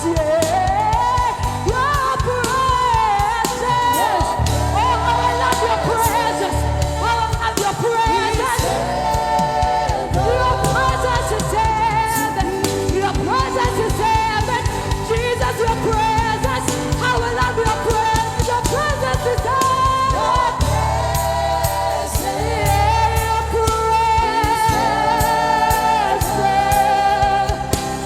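Gospel worship music: voices singing together as a choir over a steady bass accompaniment.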